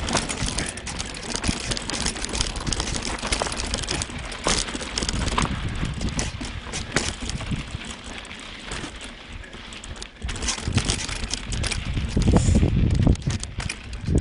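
Mountain bike clattering and rattling as it rides down rough, rocky singletrack, picked up through a phone strapped to the handlebars: constant rapid knocks and jolts. The rumble grows heavier and louder in the last couple of seconds.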